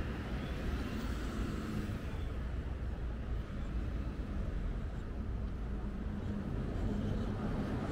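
City street traffic noise played backwards: a steady low rumble of vehicles on the road.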